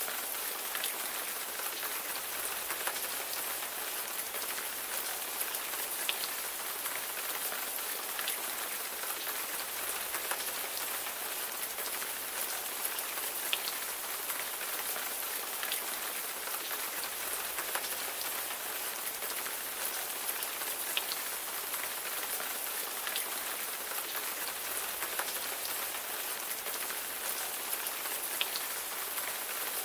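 Steady rain falling on a surface, an even hiss with individual raindrops ticking sharply here and there throughout.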